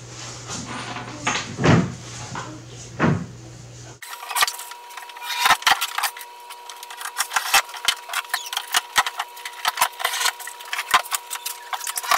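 Hard black plastic countertop form strips being set down and knocked against a plywood top: a few sharp knocks over a steady low hum. About four seconds in the sound changes abruptly to a thin, quick run of clicks and taps over a steady high tone.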